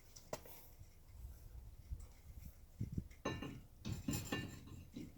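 Light metal clinks and knocks from tools and parts being handled: a single sharp click, then a cluster of clinks and knocks about three seconds in.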